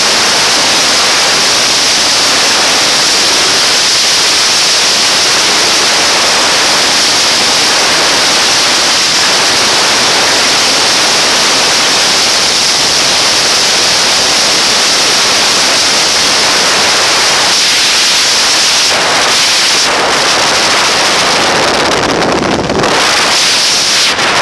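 Loud, steady rush of freefall wind over a skydiver's helmet camera microphone. Near the end it starts to waver and break up.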